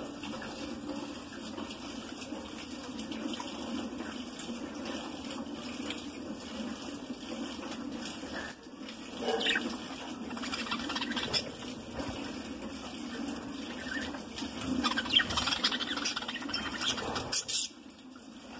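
Budgerigars chattering and chirping in an aviary over a steady low hum, with louder flurries of calls about nine seconds in and again near the end.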